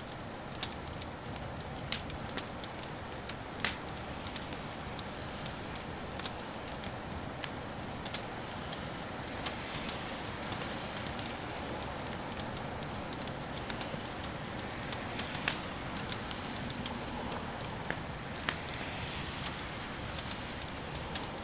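Wood fire crackling: a steady hiss with frequent sharp pops and snaps, a few of them louder.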